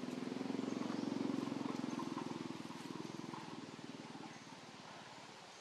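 A small engine running with a rapid, even pulsing that grows louder to a peak about a second in, then fades away as it passes.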